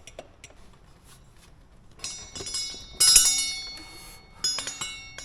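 Metal parts clinking and ringing as the front axle is worked through the wheel hub and spacers: a few sharp metallic knocks that ring on, the loudest about three seconds in.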